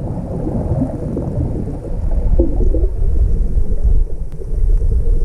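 Low, muffled underwater rumble of water moving around a camera housing, with a couple of faint sharp clicks about four seconds in.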